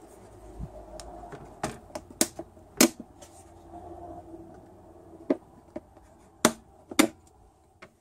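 Plastic clips on the housing of a Mercedes PSE central-locking vacuum pump snapping loose as a small screwdriver pries the case open: a handful of sharp, irregularly spaced clicks.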